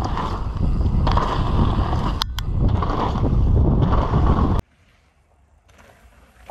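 Wind rushing over the microphone as a mountain bike rolls along a dirt trail, with a couple of sharp clicks about two seconds in. The sound cuts off suddenly near the end and drops to a much quieter background.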